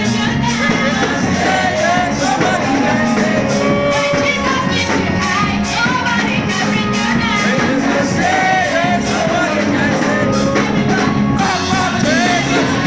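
Gospel praise song: singing over a steady drum and percussion beat.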